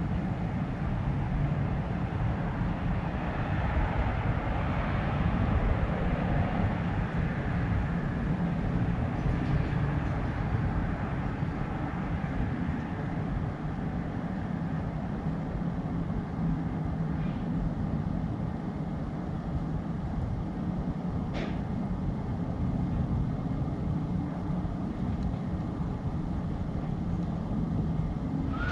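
Steady low rumble of background noise, with a faint, brief high sound about three-quarters of the way through.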